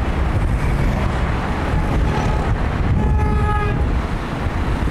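Steady rumble of wind and road noise heard from inside a moving vehicle. One vehicle horn toot, held for under a second, sounds about three seconds in.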